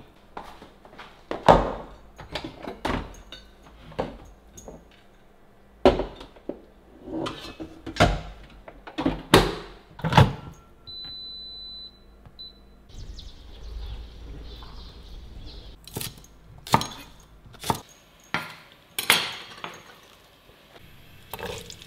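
Cookware being handled: a series of sharp knocks and clinks of pots, lids and utensils. About halfway through, an appliance gives one long electronic beep and then a short one, after which a steady hiss runs under further knocks.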